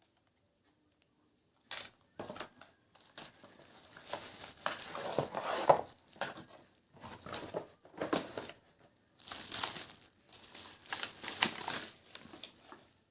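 Packaging crinkling and rustling in irregular bursts as a keyboard is unwrapped, starting about two seconds in after a near-silent opening.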